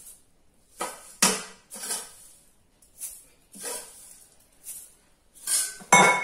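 Metal spoon scooping dried moringa leaves out of a steel bowl into a steel mixer jar: a series of short scrapes and taps of metal on metal with a dry rustle, about one to two a second. A louder clatter of dishes comes near the end.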